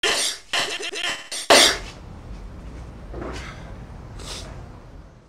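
Rhythmic beat made of short chopped fragments of a man's sneezes, ending about a second and a half in with one loud burst. After it a low steady hum with two faint breathy sounds, cutting off near the end.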